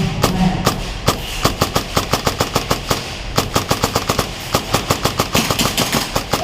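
Airsoft electric guns (AEGs) firing rapid strings of shots, about eight to ten sharp cracks a second, with a brief pause around three seconds in.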